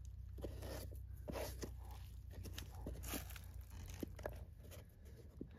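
Faint crunching and scraping of dry, crumbly soil with scattered small clicks as hands work around a small buried metal box, over a low steady rumble.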